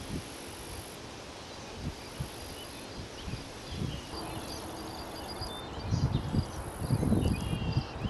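Insects trilling in prairie grass: a high, thin buzz that comes in long stretches of a second or two, with faint quick ticking from other insects. In the last two seconds, low irregular rumbling buffets come in, louder than the insects.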